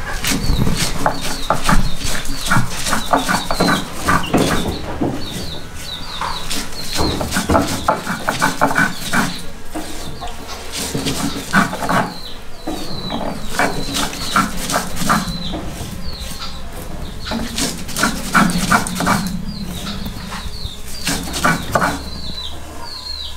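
Cooked maize being ground into masa on an ancient Maya stone metate: the hand stone scrapes and knocks against the grinding stone in repeated back-and-forth strokes. Short high chirps repeat throughout.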